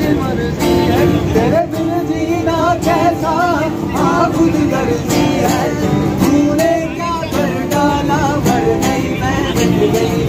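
Acoustic guitar strummed steadily with a man's voice singing along.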